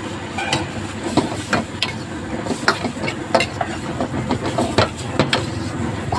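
Metal ladle and spatula scraping and clinking against a steel wok as noodles are stir-fried, irregular sharp clinks over a steady hiss of frying.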